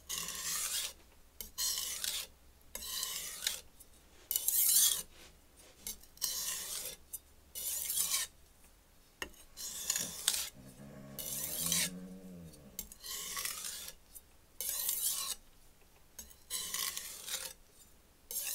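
A Gihei HAP40-steel chef knife's edge being drawn across a wet 120-grit Shapton Glass ceramic stone, about a dozen separate rasping scrapes roughly every one and a half seconds. These are light finishing strokes that pull the last of the burr off the freshly sharpened edge.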